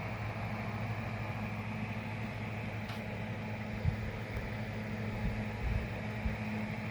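Steady machine hum, like a fan or other running appliance, with a low tone and a hiss above it; a few soft low thumps about four seconds in and again near the end.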